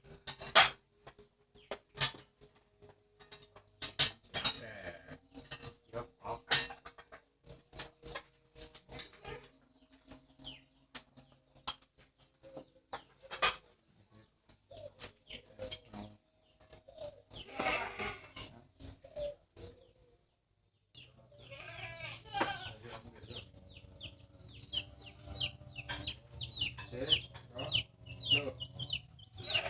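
Insects chirping in a regular run of high pulses, with scattered sharp clicks. About two-thirds of the way in the sound breaks off, and busier high chirping follows over a low hum.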